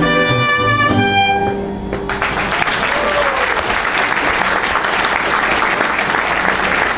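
A mariachi ensemble of violins and trumpet plays its last held notes, which stop about two seconds in; the audience then applauds.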